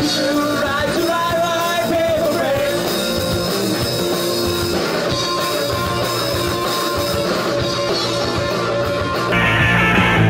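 Live rock band playing: electric guitars, bass and drums with a singing voice. About nine seconds in the sound cuts abruptly to a different, duller and bass-heavier rock recording.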